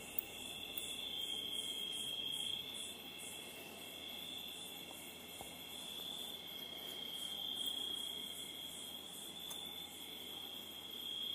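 Chorus of night-singing insects: a steady high-pitched trill, with a second, evenly pulsing chirp higher up.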